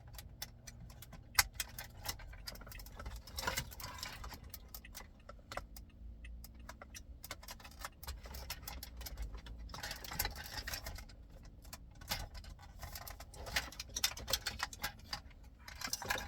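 Irregular clicks, taps and light rattling of plastic wiring-harness connectors and dash parts being handled and plugged together, with one sharp click about a second and a half in.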